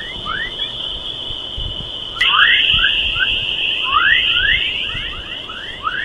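Sonified space recording: a steady high hiss-like tone with short rising chirps repeating several times a second, growing louder about two seconds in and cutting off suddenly at the end.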